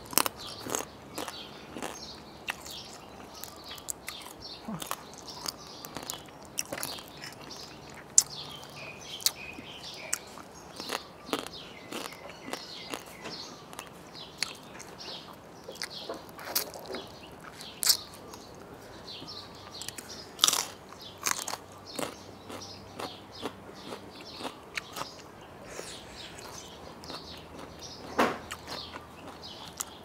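A person biting and chewing crunchy food and crisp raw vegetables close to a clip-on microphone: sharp crunches and chewing sounds come irregularly, about one every second or so, with a few louder bites.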